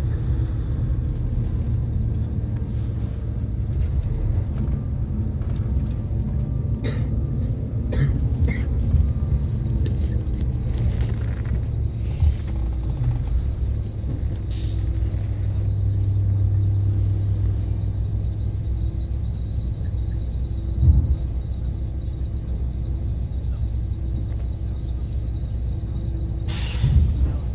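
Heavy vehicle's diesel engine rumbling at low speed, heard from inside the cab, with occasional knocks and a short air-brake hiss near the end.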